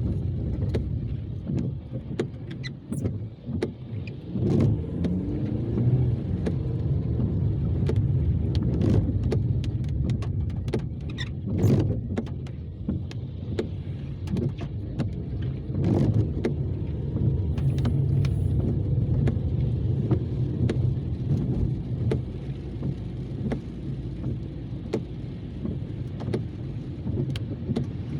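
Car cabin noise while driving: a steady low rumble of road and engine, with scattered sharp clicks throughout.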